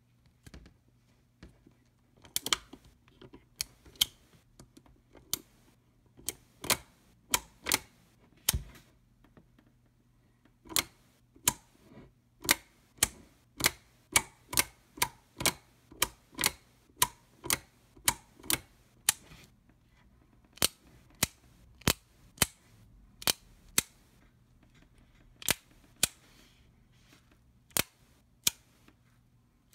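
A Smith & Wesson pre-Model 27 .357 Magnum revolver's action being worked over and over: a long run of crisp metallic clicks from the hammer and trigger as the cylinder turns and locks, often one or two a second, some in quick pairs.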